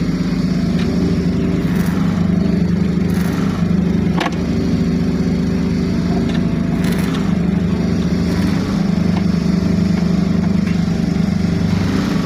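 A motor engine running steadily at an even speed, with a few faint knocks over it.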